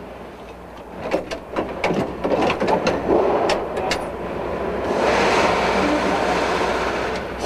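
Assembly-line workshop noise: a quick run of sharp clicks and clanks of parts and tools being handled, then a steady rushing noise from about five seconds in.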